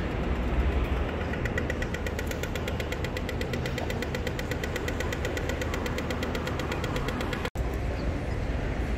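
Pedestrian crossing signal ticking rapidly for the walk phase, starting about a second in and cutting off suddenly near the end, over a low rumble of street traffic.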